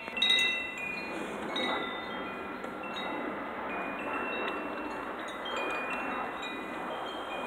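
Wind chimes ringing in the breeze: clear tones at several pitches struck at scattered moments and left to ring and overlap, over a steady rushing hiss.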